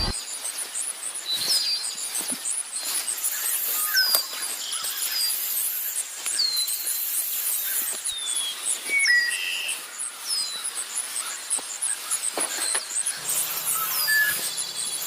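Forest ambience with bird calls: a short high whistle that drops in pitch, repeated about once a second, over a steady fast high-pitched pulsing and a few scattered lower chirps.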